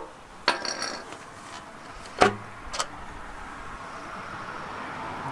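Metal-on-metal clinks from hand tools and a connecting rod cap being taken off the crankshaft of a worn Ford 400 V8. There is a short ringing clink about half a second in, then a sharp knock about two seconds in and a lighter click just after.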